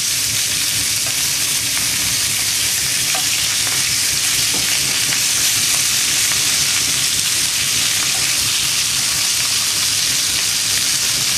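Rack of lamb searing in a very hot pan: steady sizzling as the meat's surface is sealed and browned.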